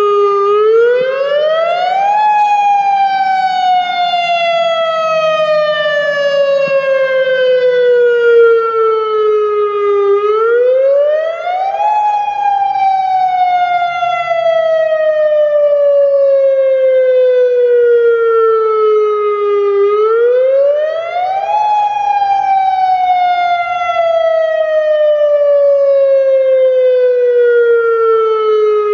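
Federal Signal Modulator 2008 outdoor warning siren sounding its wail on its monthly test. The pitch rises quickly over about two seconds, then falls slowly for about eight, three times over.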